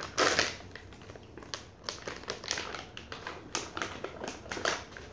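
Plastic treat-bag packaging crinkling and rustling as it is handled, in irregular crackly bursts, loudest just after the start.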